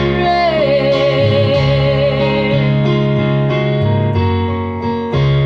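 Worship song: a woman's voice holds one long, wavering note over keyboard chords, with the keyboard carrying on alone after the note ends.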